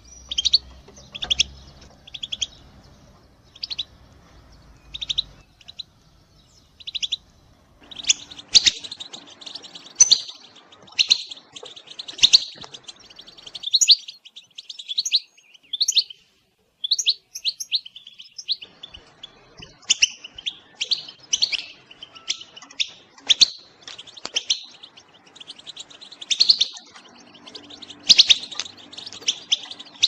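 European goldfinch twittering: quick short high chirps and trills, scattered for the first several seconds, then coming thick and nearly without pause from about eight seconds in.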